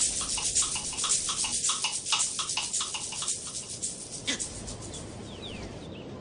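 An animal's rapid, rhythmic chattering call, many scratchy pulses a second, fading out about four seconds in. A few faint bird chirps follow near the end.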